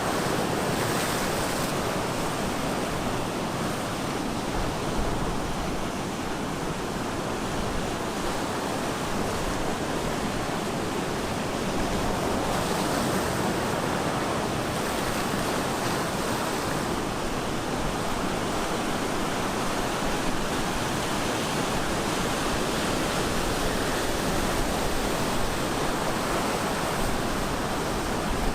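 Ocean surf breaking on the shore: a steady rush of wash and foam that swells and eases gently.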